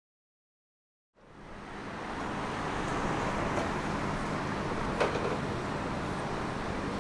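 After about a second of silence, a steady rumbling background noise with a faint hum fades in and holds, with one short knock about five seconds in.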